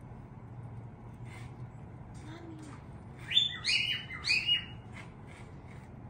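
Young lovebirds chirping. A few faint chirps come first, then about three seconds in a quick run of four loud, sharp chirps lasting just over a second.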